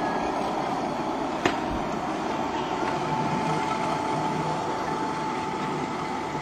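Miniature passenger train running past on its track, a steady rumble of wheels and running gear, with one sharp click about a second and a half in.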